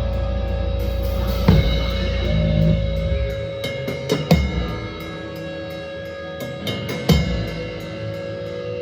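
Live metal band with drum kit and cymbal crashes over ringing held tones. The heavy low end cuts off about three and a half seconds in, leaving scattered drum and cymbal hits over the ringing tones as the song winds down.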